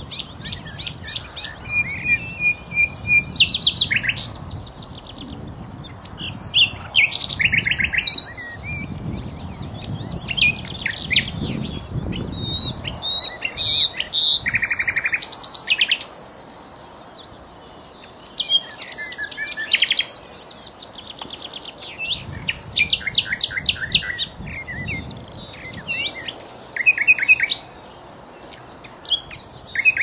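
Common nightingale singing: varied phrases a few seconds apart, mixing fast runs of repeated rattling notes with short whistled notes.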